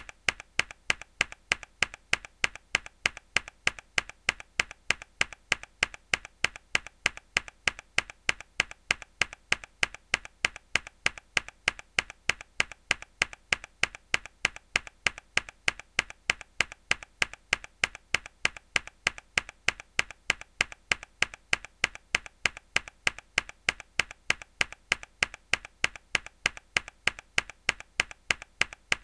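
A mechanical keyboard key struck hard again and again in an even, unbroken rhythm of sharp clicks. There are roughly two loud presses a second, each followed by a softer click.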